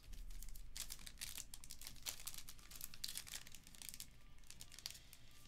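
Foil wrapper of a Panini Diamond Kings baseball card pack crinkling and tearing as it is worked open by hand, a quick run of crackles that is densest in the first half. The pack is not ripping cleanly on the seam, so it takes repeated pulling.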